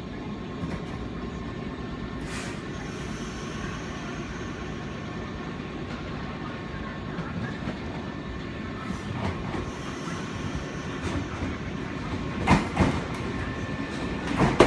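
Nankai 8000 series electric train pulling into the platform: a steady rumble, with wheels clicking over rail joints and points that grow more frequent and louder in the last few seconds as it draws alongside.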